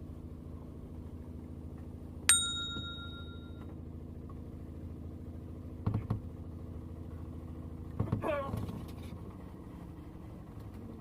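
A small bell is struck once and rings out clearly, fading over about a second, over a steady low hum. A short knock comes about six seconds in, and a brief falling squeal comes a couple of seconds after that.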